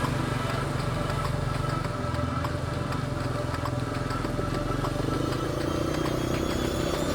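Dirt bike engine running steadily under way, its note climbing a little near the end.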